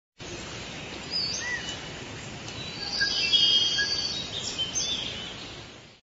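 Forest ambience: many birds chirping and whistling over a steady background hiss, louder in the middle and fading out near the end.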